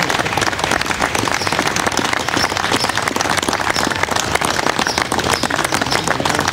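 A group of people clapping: steady, dense applause.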